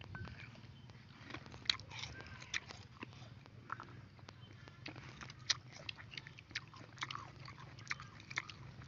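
Children biting into and chewing small, firm, sour green fruits: irregular sharp crunches, the loudest about two seconds in and again about five and a half seconds in.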